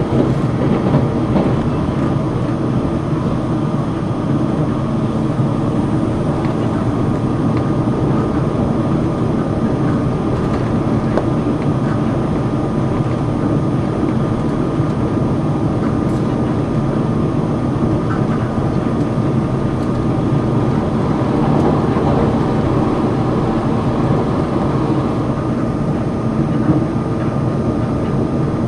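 Limited express Sonic tilting electric train running at speed, heard from inside the passenger car: a steady rumble of wheels on rail with a constant thin whine above it.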